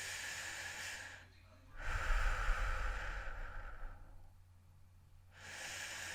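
A person breathing heavily and slowly into a close microphone, with separate noisy breaths each lasting one to two seconds. The loudest and longest breath runs from about two to four seconds in, with a low rumble of air on the mic, and another breath begins near the end.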